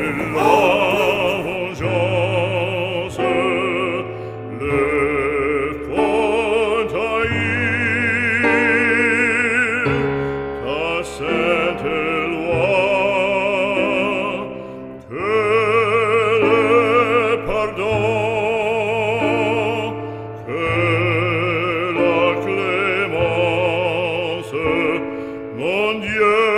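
Operatic singing with wide vibrato over an accompaniment of long, held low notes; the voice breaks off briefly a few times between phrases.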